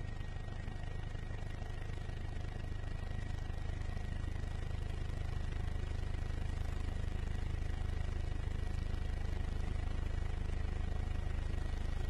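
Helicopter cabin noise: a steady low drone from the rotor and engine with a fast throb, and a thin steady whine above it.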